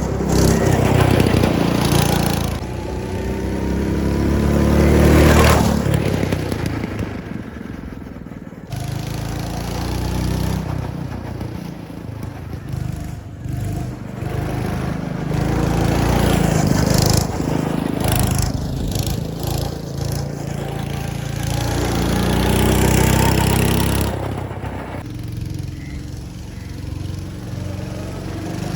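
Twin-seater go-kart engine running on the track, its note rising and falling as it speeds up and slows for corners, loudest about five seconds in.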